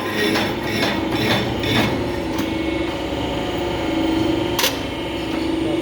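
Milling machine converted to hydraulic operation running with a steady hum. There are a few quick knocks in the first two seconds and a single sharp click about four and a half seconds in.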